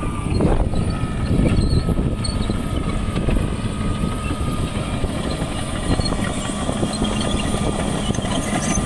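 Caterpillar D6R crawler bulldozer running steadily at work, its diesel engine and tracks giving a continuous mechanical din.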